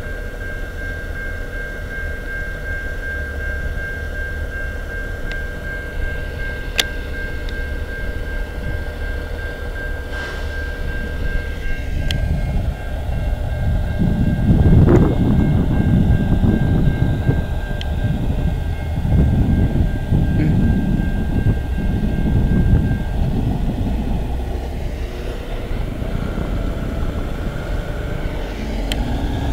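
Rail traffic: a steady low rumble that grows louder from about halfway through, in uneven swells.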